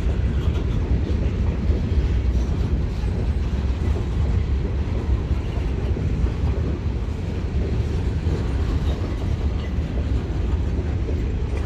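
Freight train rolling past on the rails: a steady low rumble of wheels and cars, with no horn.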